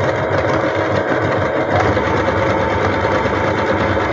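Electric sewing machine running steadily, its needle stitching a decorative arrowhead stitch through fabric in a fast, even run of strokes.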